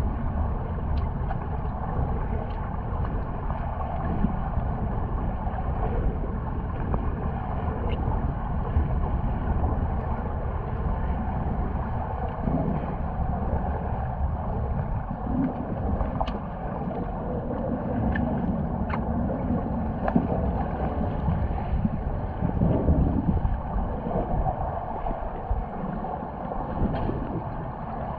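Underwater swimming-pool ambience picked up by a camera underwater: a steady low rumble with a haze of water noise and a few faint clicks now and then.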